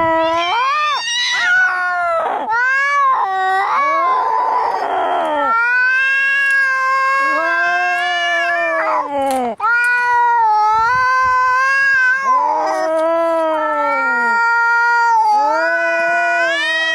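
Angry domestic cats caterwauling: long, drawn-out yowls that bend up and down in pitch, one after another, with a harsher, raspy cry about four seconds in.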